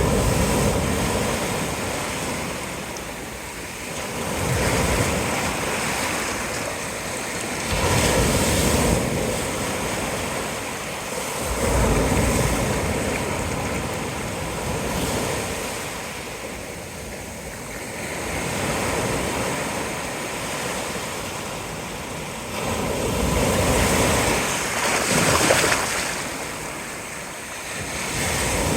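Pacific surf breaking on a beach: waves crash one after another every few seconds, each rush of white noise swelling and then washing back down.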